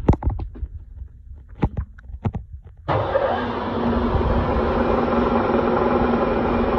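A few sharp clicks and knocks, then about three seconds in the Bridgeport Series II milling machine's 4 HP motor comes on suddenly. It keeps running steadily with a constant tone.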